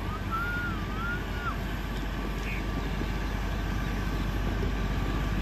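Massey Ferguson 385 tractor's four-cylinder diesel running steadily under load, driving a 60-blade rotavator through dry soil in fourth low gear. A brief wavering whistle-like tone sounds in the first second and a half.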